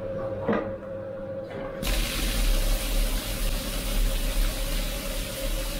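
A bathtub tap turned on about two seconds in, sending a steady gush of steaming hot-spring water into the tub.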